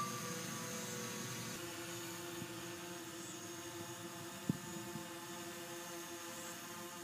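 Steady hum of a small camera drone's motors and propellers, made of several held tones that shift slightly about a second and a half in, with one faint click past the middle.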